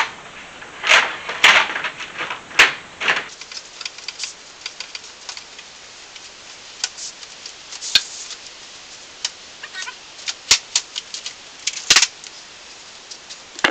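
Window blind slats clicking and clattering as they are handled and wiped with a rag, with louder rubbing swishes about a second in and again near the end.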